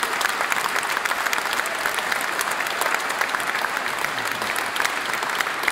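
Audience applauding steadily in a large stone cathedral, many hands clapping densely together.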